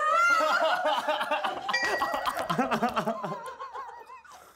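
Men laughing hard, the laughter trailing off near the end, with a short steady ringing tone about two seconds in.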